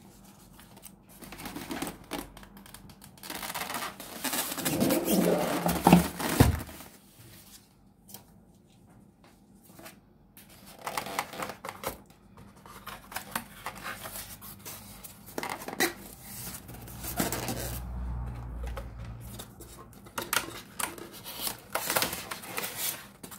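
Cardboard and polystyrene foam packaging handled while unboxing an appliance: irregular rustling, scraping and light knocks, with a louder stretch of rubbing about five seconds in that ends in a sharp knock near six seconds.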